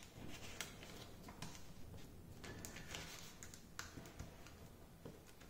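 Faint rustling and soft crinkling of origami paper being folded and its creases pressed flat by hand, with a few light clicks scattered through.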